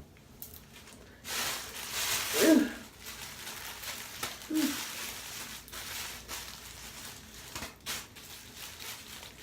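Rustling and handling noise as a hair covering is pulled over the head and tied, with a couple of brief voice sounds about two and a half and four and a half seconds in.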